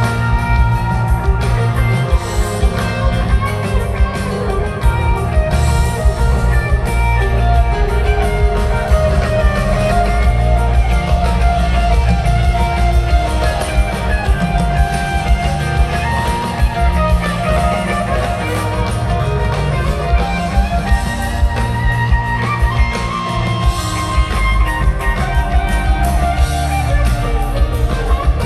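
Live rock band playing an instrumental jam at steady volume: electric guitar lines over bass guitar and drum kit.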